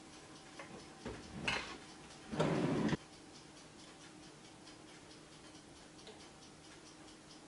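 A few light clinks, then a short scrape a little over two seconds in, as the glass kimchi jar and its metal lid are handled and set down on the wooden board. Under it and after it runs a faint, regular ticking like a clock.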